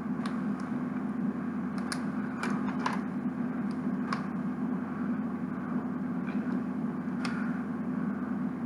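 Plastic Lego bricks clicking as small pieces are pried apart and fitted by hand: a handful of sharp, irregularly spaced clicks over a steady low background hum.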